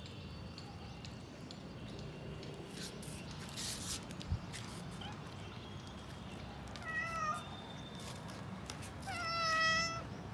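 A domestic cat meowing twice: a short meow about seven seconds in, then a longer, louder meow near the end.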